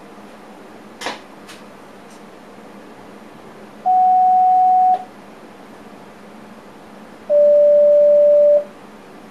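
Two steady electronic beeps in a train driver's cab, each lasting about a second, the second a little lower in pitch than the first. They come after a sharp click and two fainter clicks, over the cab's steady running hum.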